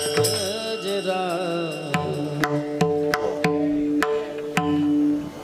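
Kirtan accompaniment between sung lines: steady held notes under a wavering melodic line, with drum strikes every half second or so.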